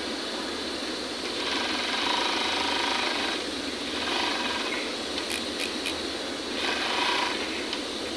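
Industrial overlock sewing machine running in three short bursts, the first the longest, as it stitches a test seam after its looper tension and knife position have been adjusted to narrow the stitch.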